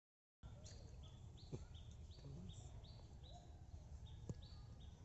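Faint outdoor ambience with a small bird calling over and over in short high chirps, about two or three a second. There are two faint clicks, and the sound cuts in after a moment of dead silence.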